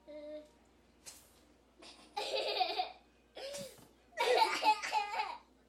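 A person laughing in several bursts, the loudest near the end.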